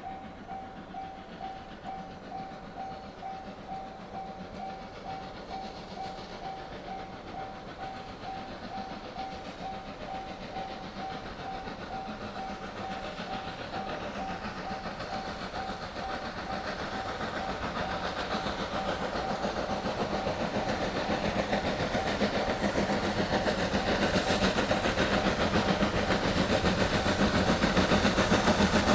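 Steam locomotive working under power, its exhaust chuffing in an even rhythm about twice a second with a hiss of steam. It grows steadily louder as the train approaches.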